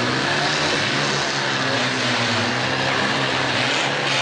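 Four-cylinder demolition derby cars' engines running hard at high revs, a loud steady drone as the cars push and ram each other.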